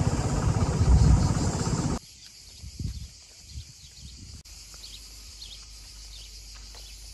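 Wind buffeting the microphone over a running scooter engine while riding, cutting off abruptly about two seconds in. After that comes a faint, steady high buzz of insects, with a few soft knocks.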